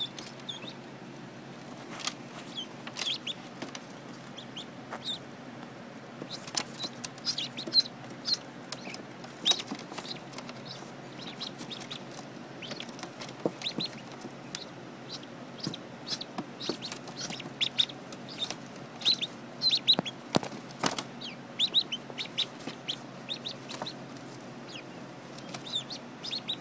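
Newly hatched ducklings peeping: many short, high-pitched peeps throughout, over a steady low hum.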